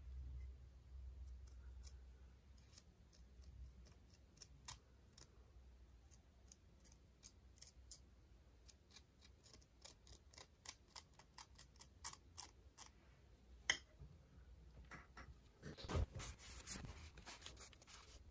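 Faint, irregular small clicks and light scrapes of a bamboo spatula against the broken edge of a glazed ceramic shard, several a second. Near the end, a louder rustle and knock as the shards are handled and set down on a cloth.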